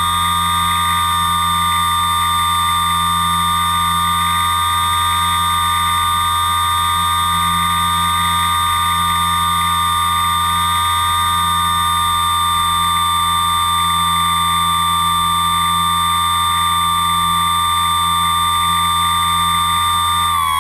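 Steady, high-pitched whine of the electric motor on the radio-controlled aircraft carrying the camera, held at an even throttle, with a low hum underneath.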